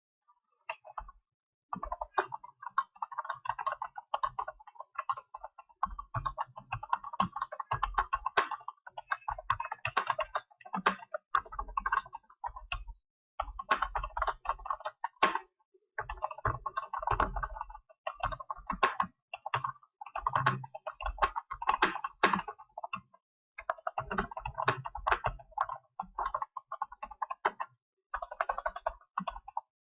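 Fast touch-typing on a computer keyboard: rapid key clicks in runs of a few seconds, broken by short pauses, at a typing-test pace of about 65 words per minute.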